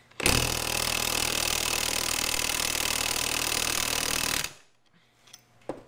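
Impact wrench running on the pinion nut of a Ford 8.8 IRS differential for about four seconds, then stopping suddenly. The nut is being run down against the crush sleeve to take out pinion play and set pinion bearing preload.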